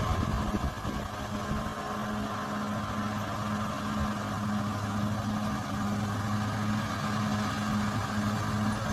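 Bulldozer's diesel engine running steadily at a constant pitch.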